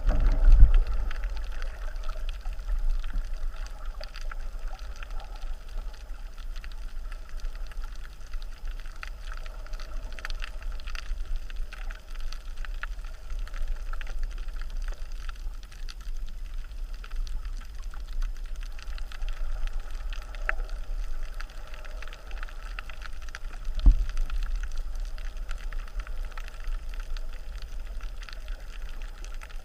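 Surf surging and churning over a shallow reef, heard underwater through a GoPro Hero3 Black's sealed housing: a steady low rumble with scattered crackles and clicks from the aerated water. Two heavier thumps stand out, one just after the start and one about 24 seconds in.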